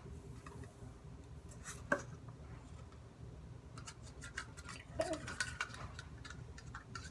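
A utensil stirring and scraping in a container of runny slime mixture, with scattered clicks and knocks: one sharp knock about two seconds in and a cluster of clicks later on.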